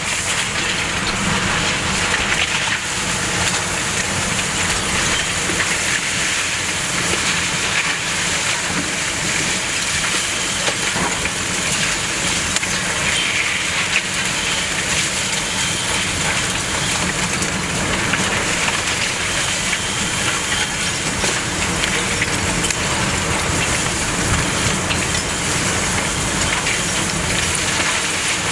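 Hurricane-force eyewall winds of a Category 4 hurricane blowing with rain, a loud, dense, unbroken noise that holds steady with no letup.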